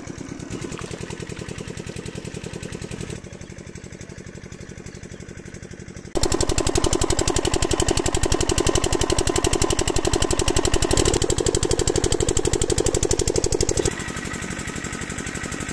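Single-cylinder water pump engine running steadily with a fast, even beat. It is loudest for about the middle third, where it is heard close up, and quieter before and after.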